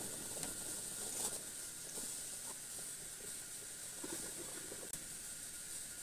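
Kitchen faucet running a steady stream of hot water into the plastic tub of a collapsible portable washing machine, filling it: a faint, even hiss of running water.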